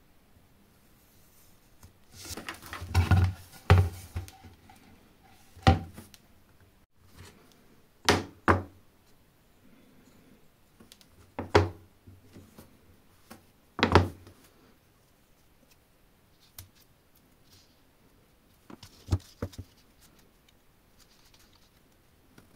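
Workshop knocks and thunks, as from hard workpieces or tools being handled, tapped and set down. A cluster of sharp knocks comes a couple of seconds in, then single and paired knocks follow several seconds apart, with quiet between them.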